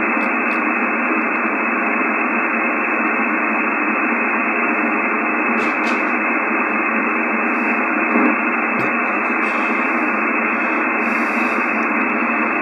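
Icom IC-736 HF transceiver receiving in lower sideband on an empty stretch of the 10-metre band: a steady hiss of band noise, cut off sharply above and below by the sideband filter, while being tuned down through the band with no station heard.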